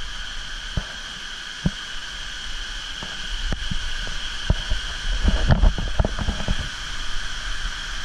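Steady high-pitched drone of insects in tropical forest over a wash of rushing water, with a few low thumps, most of them clustered about five seconds in.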